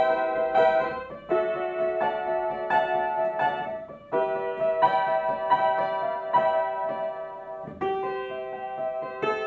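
Upright acoustic piano played solo: a moderate melody of struck notes over held chords in the middle register, with fresh notes every half to three-quarters of a second.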